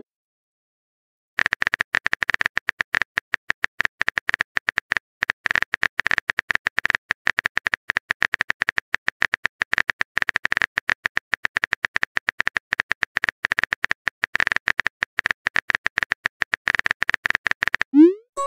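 Rapid, irregular phone-keyboard typing clicks as a long text message is typed out, starting about a second and a half in. Near the end the clicks stop and a short rising swoosh sounds as the message is sent.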